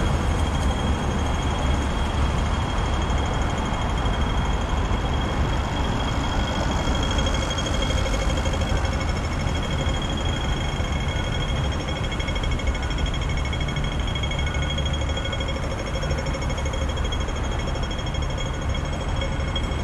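Pedestrian crossing signal's audible ticker repeating fast high electronic ticks, over a steady low rumble of street traffic.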